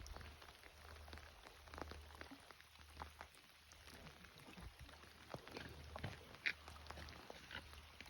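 Faint rain: scattered raindrops ticking irregularly close by, over a steady low rumble.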